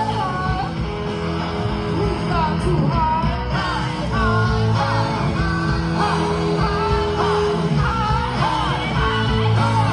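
Live rock band playing: a woman singing over electric guitars, keyboard, bass and drums.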